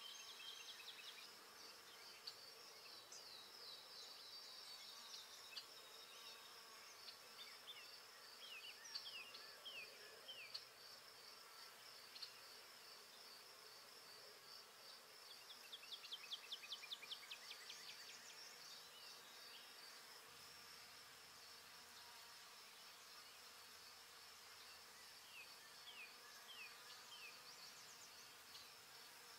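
Faint woodland ambience: a steady, high-pitched, finely pulsing insect-like buzz, with scattered short falling bird chirps and a quick trill a little past the middle.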